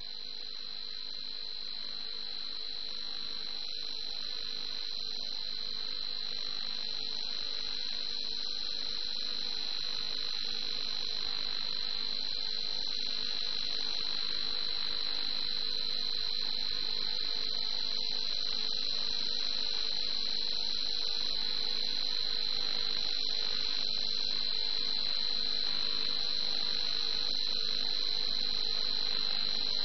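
Jet airliner engines at takeoff power during the takeoff roll: a steady noise with a high whine, growing slowly louder as the aircraft comes closer.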